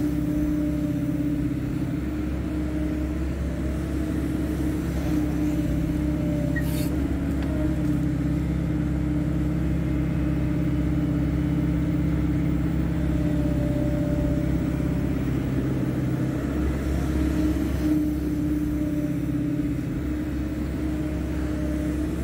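Hydraulic excavator's diesel engine running steadily at working speed, with a steady low rumble.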